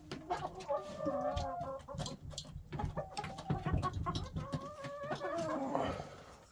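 Domestic hens clucking and calling in drawn-out, wavering notes for several seconds, with scattered knocks and rustles.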